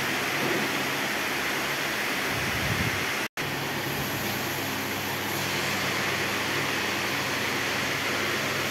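Steady machinery hum and hiss, constant throughout, with a momentary dropout about three seconds in.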